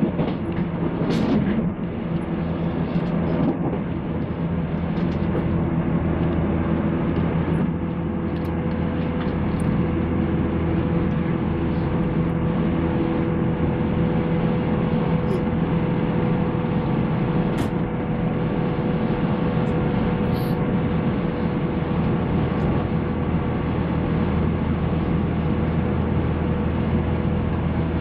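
JR 185 series electric train running, heard on board: a steady hum of traction motors and gears over rumbling wheel and rail noise, with a short falling tone about a second in.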